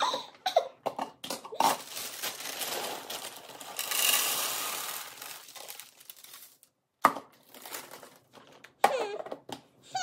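Plastic bag crinkling, then dry cereal pouring from the bag into a glass storage jar in a steady rattling stream for a few seconds. A few sharp clicks follow as the jar's lid is handled.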